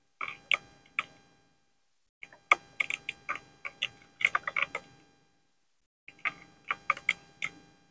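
Sharp clicks with a short ringing tail, in three irregular bursts of several clicks each, separated by dead silence.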